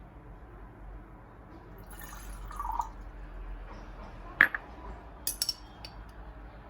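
Glass and liquid handled in a small room: a brief pour of liquid into a glass, then one sharp clink and a few light clicks.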